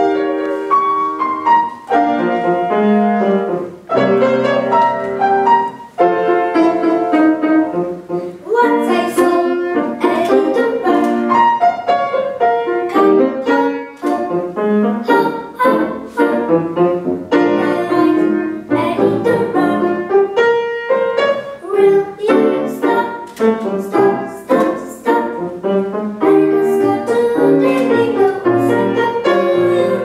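Grand piano accompaniment for a song, starting at once with struck notes and chords, with a young boy's singing voice joining over it later.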